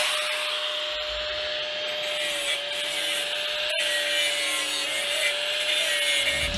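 Power tool grinding at the steel exhaust pipe where the flex joint goes, trimming it so the new joint will fit: a steady whine over a harsh, even scraping hiss.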